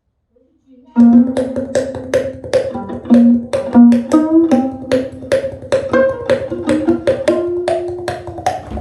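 Music from a portable Bluetooth speaker, starting abruptly about a second in: sharp plucked-string notes and percussive hits, several a second, over sustained pitched notes.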